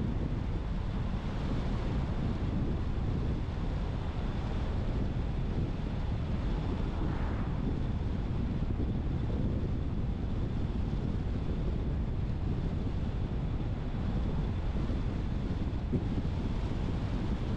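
Steady road and wind noise from a car driving along.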